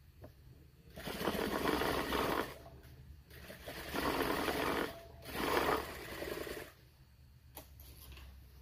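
Sewing machine stitching in three bursts, the last two close together, with a low steady motor hum in between.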